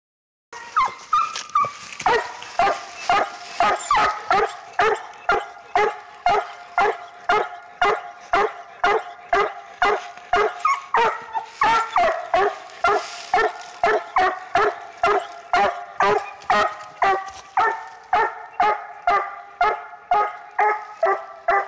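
Young coonhound pup barking at a raccoon, short pitched barks in a steady, even rhythm of about two a second.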